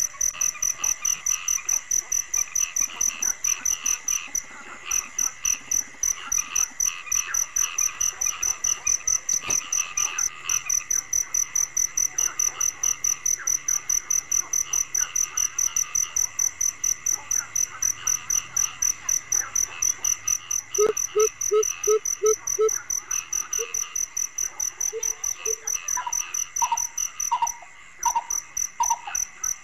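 Crickets and frogs calling together: a fast, even, high cricket chirping runs under scattered frog calls. About 21 seconds in a quick run of about six low notes sounds, and over the last few seconds a higher call repeats about twice a second.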